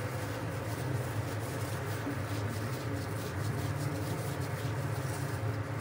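Plastic-gloved hand mixing sauced noodles in a glass bowl, the glove crinkling and the noodles squishing, over a steady low hum.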